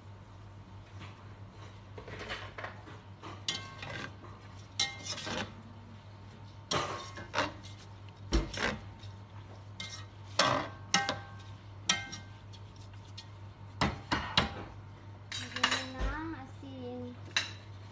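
Metal utensil scraping and clinking against the side of a large cooking pot as cooked rice is stirred and fluffed, in irregular strokes.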